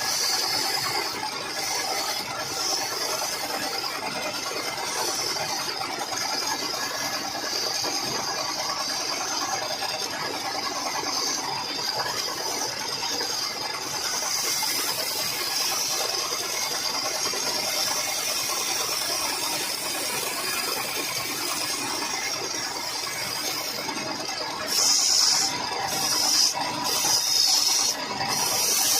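Wood lathe running with a tool cutting into the spinning wood: a steady hissing scrape, with a few louder cutting passes near the end.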